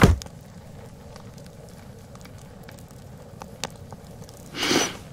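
The music cuts off with a soft thump, leaving quiet room tone with a few faint clicks. Near the end comes one short, breathy sound, a single breath.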